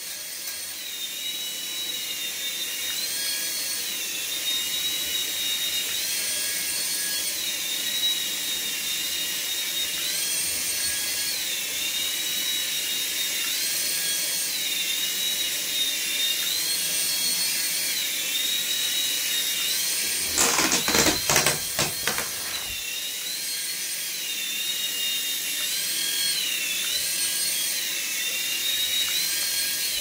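Small coaxial RC toy helicopter's electric motors and rotors whining high in pitch, the whine stepping up and down every couple of seconds as the throttle shifts. About twenty seconds in, a brief clatter of rapid knocks, the loudest thing here.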